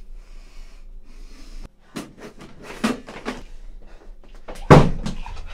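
A string of short, sharp sounds from a man moving about a small room, heavy breaths and knocks, starting about two seconds in. The loudest is a single hard burst near the end.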